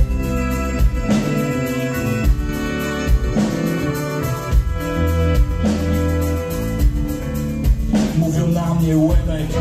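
Live rap band playing an instrumental break between rapped verses: a drum kit with about one heavy beat a second under a bass line and held melodic lines.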